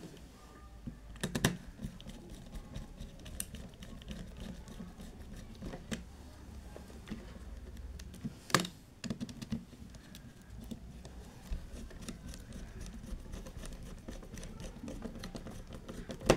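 Scattered small clicks and taps of wires and a screwdriver being worked into the plastic screw terminals of electrical contactors, with the sharpest click a little past halfway.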